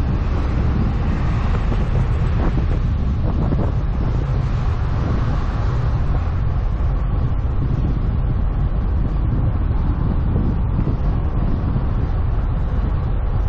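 Wind noise on a GoPro HERO9 Black's microphone on a moving road bike: a steady, mostly low-pitched roar of air rushing past.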